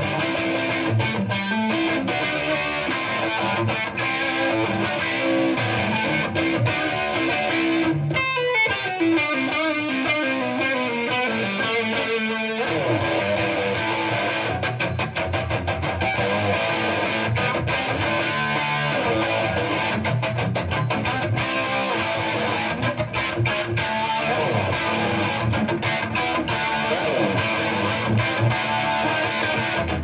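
Electric guitar, a Gibson Les Paul 1959 reissue with humbucking pickups, played through a cranked, channel-jumpered 1972 Marshall Model 1986 50-watt Bass head into a Marshall 4x12 cabinet with G12 Vintage speakers, with no pedals: continuous overdriven riffs and chords. About eight seconds in comes a long falling slide lasting around four seconds.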